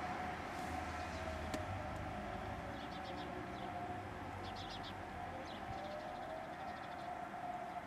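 Federal Signal Model 2001 tornado sirens sounding in the distance: one steady wail whose pitch wavers slightly.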